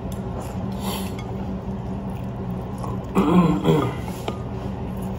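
Soft background music with a steady low hum, and a young girl's short vocal sound, like a little laugh, a bit past three seconds in.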